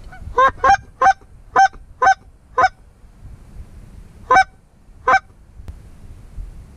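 Loud goose honks: six in quick succession over the first three seconds, then two more after a pause, about four and five seconds in.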